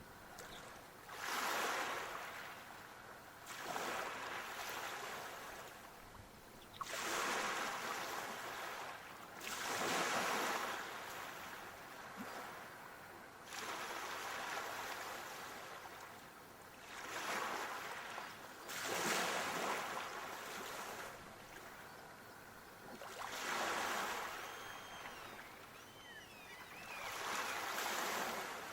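Small waves washing onto a shore, each one swelling into a hiss and fading away every two to four seconds.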